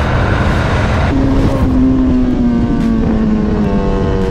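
Motorcycle engine running at road speed under wind and road noise. About a second in, the engine note comes through clearly as a steady hum that slowly falls in pitch.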